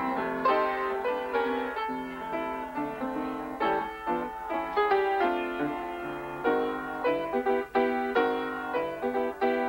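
Solo piano playing a 1920s popular tune, a melody over steadily struck chords.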